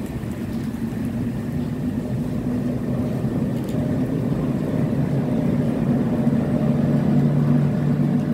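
Class 73/9 electro-diesel locomotive hauling a departing test train, its engine working under power with a steady low drone that grows louder toward the end as the rear locomotive draws past.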